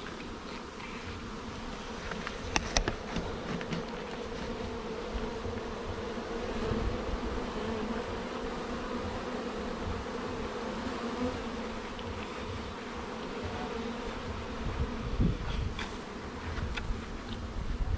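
Honey bee swarm buzzing, a steady, dense hum of many bees close to the microphone, with a few faint clicks and knocks of handling.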